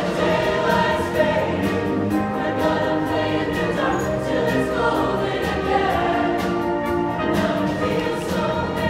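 A show choir singing in harmony over a live band with saxophones.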